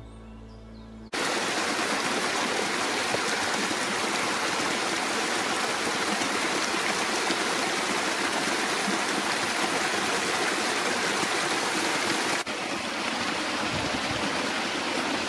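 A small woodland brook running over little cascades: a steady rush of water that starts abruptly about a second in. Near the end it changes slightly as a shallower, calmer stretch of the brook is heard.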